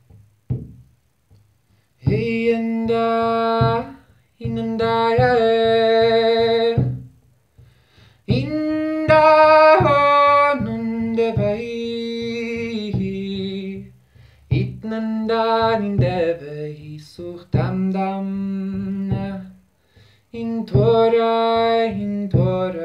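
A man sings long held, wordless notes in phrases of a few seconds with short breaks between them. Under the voice a large hide frame drum, struck with a felt-headed beater, keeps a steady beat of low thuds.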